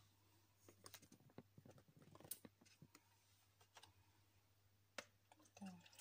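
Faint, scattered clicks and light taps of things being handled on a kitchen counter, with a sharper click about two seconds in and another about five seconds in, as a milk carton is picked up.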